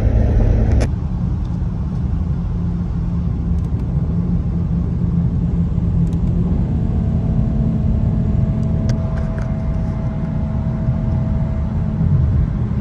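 BMW engine and exhaust droning steadily at highway cruising speed, heard inside the cabin over road and tyre noise, with no revving.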